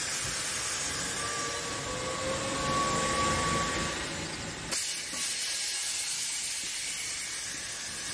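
Steady hissing noise, with a faint high whistle in the first half; about halfway through it changes suddenly and becomes brighter and thinner.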